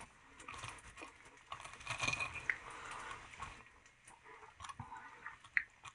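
Faint crunching of a fork cutting through a crisp, breadcrumb-coated fried chicken nugget, with a few light clicks of the fork against the plate near the end.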